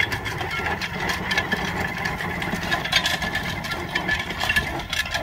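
Case steam traction engine running steadily, its machinery and exhaust making a fast, even clatter over a low hum.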